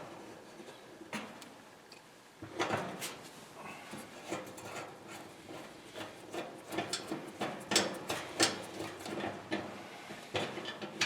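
Irregular clicks, taps and light scraping of a hand tool backing a screw out of the metal bearing bracket on the back of a clothes dryer, the clicks coming closer together near the end.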